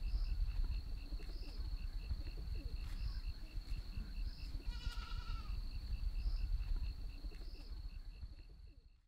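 Rural outdoor ambience: a goat bleats once, briefly, about five seconds in, over a steady high-pitched trill that pulses about three times a second and a low rumble. The sound fades out near the end.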